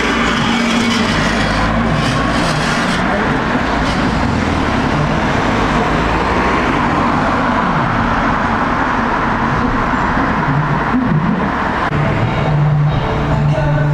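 Old Ikarus city buses' diesel engines running as the buses move along the street, with steady road traffic noise. Near the end a steady low hum comes in.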